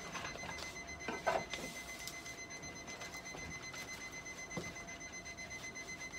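Rapid, steady electronic beeping, high-pitched and even, from a piece of clinic equipment. A brief louder sound comes about a second in, and a soft knock comes a little past the middle.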